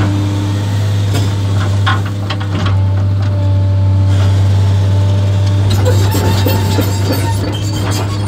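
JCB JS 235 HD tracked excavator's diesel engine running steadily under load, heard from inside the cab, as the boom and bucket swing over the sand pile. About six seconds in, a clatter of short clicks and knocks joins it.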